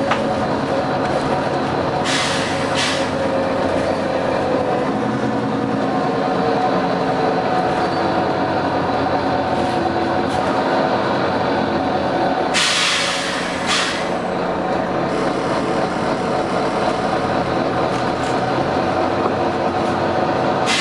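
Volvo B9TL double-decker bus running, a steady drone from its drivetrain with a whine that falls in pitch a few seconds in. Short bursts of air hissing cut through it, a pair about two seconds in and a louder pair around the middle.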